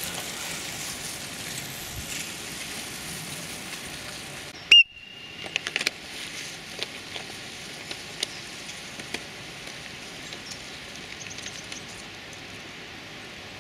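A short, loud whistle blast about a third of the way in, over a steady outdoor rush of wind-like noise. A few scattered clicks follow.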